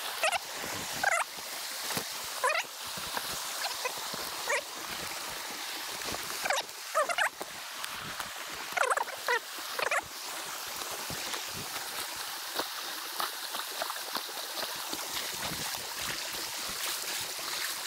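Steady rush of fast-flowing creek water over logs and debris, with short pitched calls every second or two during the first ten seconds or so.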